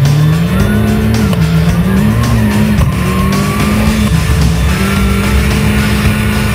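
A 1996 Mitsubishi Lancer Evolution III Group A rally car's turbocharged four-cylinder engine at racing revs. Its pitch climbs sharply, dips and climbs twice, then holds steady, over background music.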